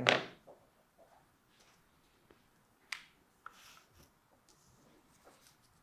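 Faint handling noises and small clicks from a handheld dental shade-measuring camera being moved into place against a tooth model, with one sharp click about three seconds in.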